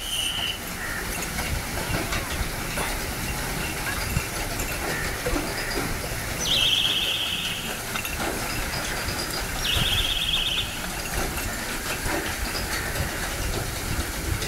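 Steady rushing noise, with two short shrill trilling whistle blasts about a second long each, a few seconds apart.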